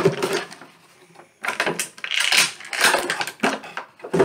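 Clear plastic packaging tray crinkling and crackling as it is pulled out of an action figure box, in several rustling bursts from about a second and a half in.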